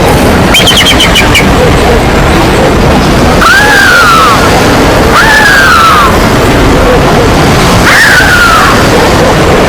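Animal calls over a loud, steady rushing noise: a quick chattering trill about half a second in, then three separate calls, each rising and then falling in pitch.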